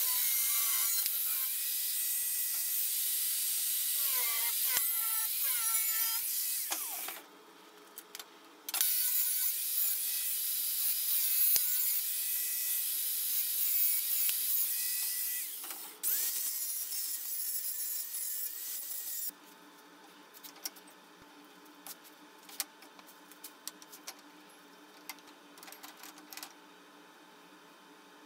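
Bosch angle grinder with a cut-off disc cutting sheet metal, a loud hissing scream whose pitch wavers as the disc bites. It stops about seven seconds in, cuts again from a second and a half later, eases off around sixteen seconds in and stops at about nineteen seconds. After that come scattered light clinks and knocks of metal being handled.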